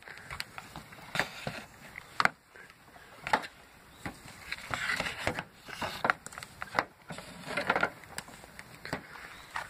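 A heavy rubber-jacketed 30 amp RV power cord being hauled out by hand and dropped in coils, with irregular rustling and scraping and scattered small clicks and knocks.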